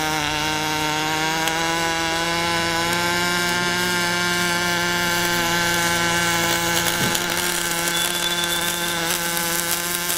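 Angle grinder running steadily with a pitched motor whine.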